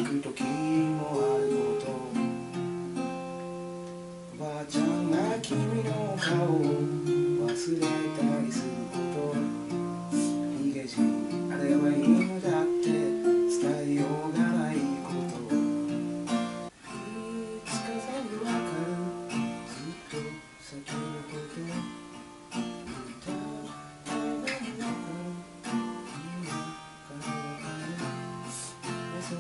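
Acoustic guitar being strummed and picked, playing a song with a changing chord pattern.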